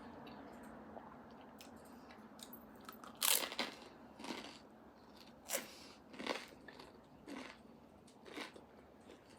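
A person chewing and crunching food close to the microphone while eating bone marrow. There is a run of separate crunchy bites roughly once a second from about three seconds in.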